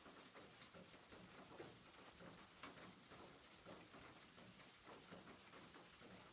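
Rain falling on a roof, faint and steady, with many scattered drops tapping over a constant hiss.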